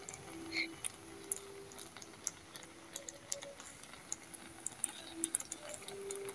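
Creamy mushroom sauce simmering in a pan around chicken breasts, giving faint, irregular small pops and crackles.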